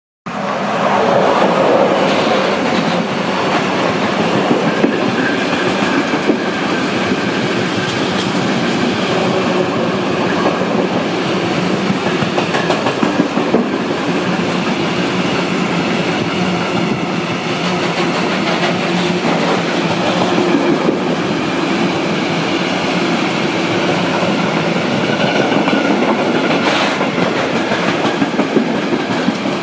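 Freight train of timber wagons hauled by a DB Class 185 electric locomotive rolling steadily past, with a continuous rumble and the clickety-clack of wheels over the rail joints.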